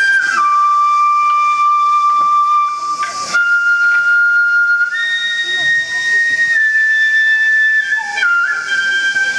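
Japanese bamboo transverse flute (shinobue) playing a slow melody of long, high held notes that step up and down in pitch, with little or no drumming under it.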